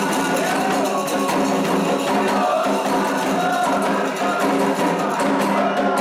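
Candomblé toque for Ogum: atabaque hand drums and a struck percussion pattern keeping a steady, driving rhythm, with voices singing over them.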